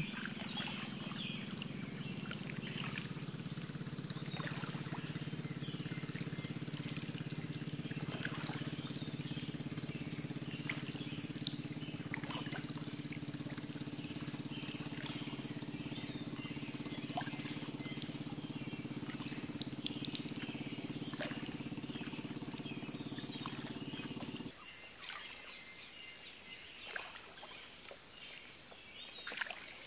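Gentle water lapping over calm, shallow sea, with many small splashes and trickles over a steady high hiss. A low steady hum runs underneath and cuts off suddenly about 24 seconds in.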